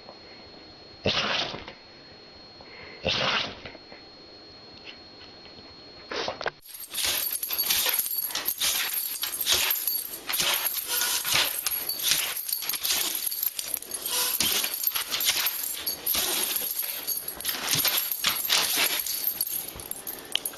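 A person sneezes twice, about two seconds apart. Then comes a dog's long, rapid run of short excited sounds, reacting to the sneezing.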